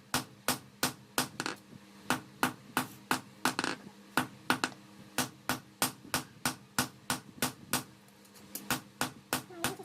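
Blacksmith's hammer striking steel on an anvil in a steady forging rhythm, about three blows a second, over a faint steady hum.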